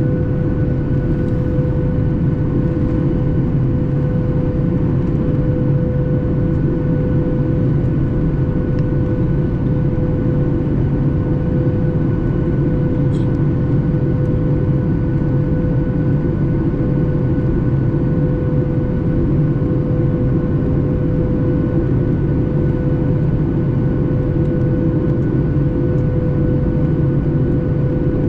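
Steady drone inside a Boeing 737 MAX 8 passenger cabin: the CFM LEAP-1B engines and rushing air make a loud, even noise with a steady hum tone running through it.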